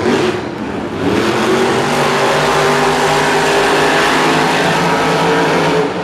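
Monster truck engines, supercharged big-block V8s, revving hard in a race. The pitch climbs in the first second, then holds at high revs.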